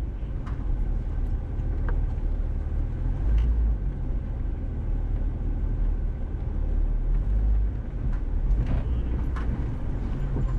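Jeep Wrangler TJ's engine running low and slow as it crawls over a rocky trail, with a steady low rumble that swells and eases. A few faint knocks and ticks are heard from the rocks and the body.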